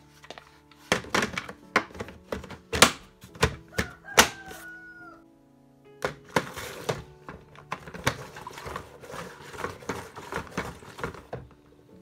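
Hard plastic knocks and clatter of a flat-mop bucket being handled, then the flat mop pad pushed into the bucket's slots, with a run of quick scraping clicks in the second half.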